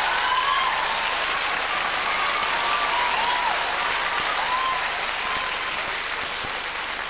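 Studio audience applauding after a joke, with a few whistles over it, slowly dying down.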